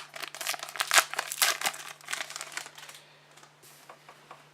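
A trading card pack's wrapper being torn open and crinkled for about three seconds, then only a few faint ticks of handling.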